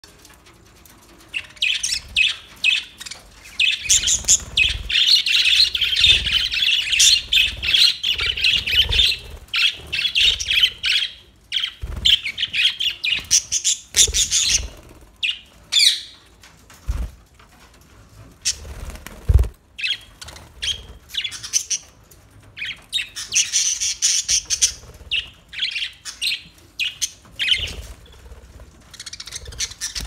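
A flock of budgerigars chattering and chirping: a dense run of quick chirps that thins out in the middle and builds up again near the end, with a few short low thumps in the quieter middle stretch.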